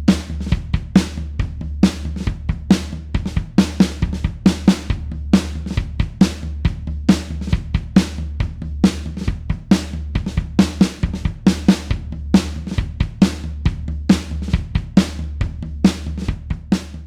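Rock drum kit playing a steady beat, with bass drum, snare and cymbals or hi-hat hits repeating evenly.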